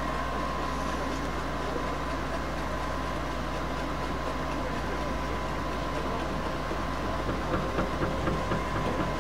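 Electric continuous plaster mixer running steadily as it mixes and discharges premixed plaster, a constant hum with a steady whine, over a generator running. Irregular knocks come in over the last couple of seconds.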